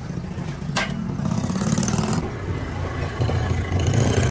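Truck running, with a steady low engine and road rumble. A sharp sound comes a little under a second in, and a short hiss follows about a second later.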